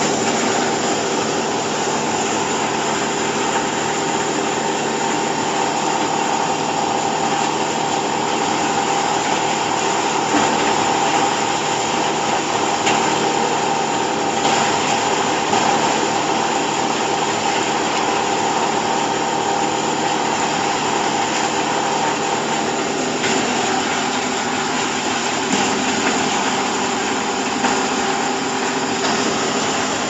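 Hydraulic chopped-hay bagging baler running: a steady machine hum with a few constant tones over a wide hiss, from its electric motor and hydraulic pump. The tone shifts slightly a little over twenty seconds in.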